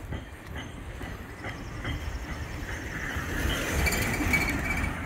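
A small car driving past close by, its tyre and engine noise swelling to a peak about four seconds in.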